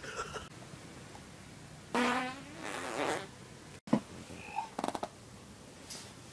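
A loud, pitched fart about two seconds in, trailing into a shorter wavering one. Sharp clicks follow in the second half, including a quick run of them.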